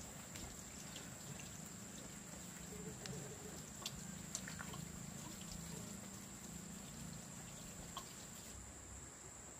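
Steady high-pitched drone of insects, crickets, with a few soft clicks and rustles as garden plants are handled.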